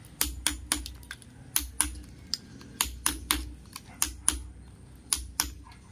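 Quick, sharp hammer strikes in bursts of two to four, about four a second, with a dull thud under each burst, as ceramic tiles are chipped off a wall. The tiles come away easily because there is hardly any mortar behind them.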